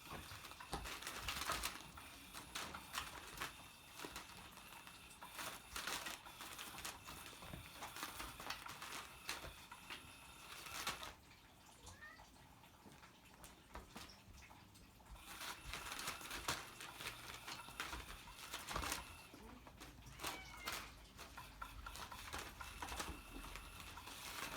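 Cats playing with a toy: a faint scatter of clicks, rattles and rustles from the toy and their paws on the floor, in busy spells with a quieter stretch in the middle, and a couple of short high calls.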